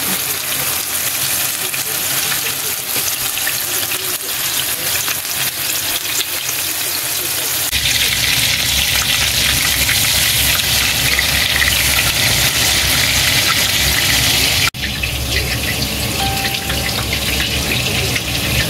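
Ground pork-and-beef hamburger steak patties sizzling in hot oil in a nonstick frying pan, a steady hiss that grows louder and fuller about eight seconds in. It drops out for an instant near the end.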